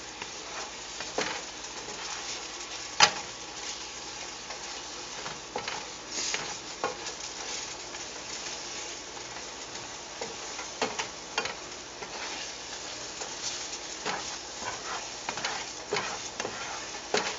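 Asparagus sizzling in a sauté pan as a garlic, soy and broth sauce cooks down to a glaze, with scattered clicks and scrapes of a utensil stirring against the pan. The sharpest knock comes about three seconds in.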